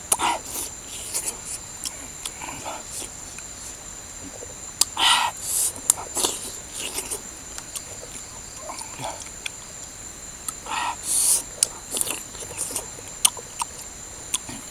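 Close-up chewing and lip-smacking while eating cooked coconut worms (palm weevil larvae): irregular wet smacks and mouth clicks, the loudest about five and eleven seconds in. A steady high insect drone runs underneath.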